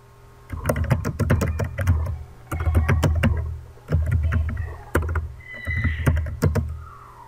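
Computer keyboard typing: runs of quick key clicks with a low thud under them, starting about half a second in and pausing briefly between words.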